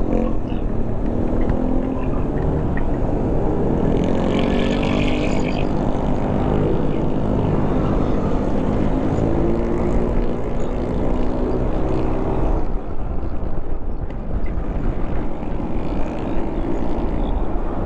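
Motorcycle engine running under way, with wind rumbling on the microphone; the engine note rises and falls with the throttle and drops back about thirteen seconds in as the rider eases off.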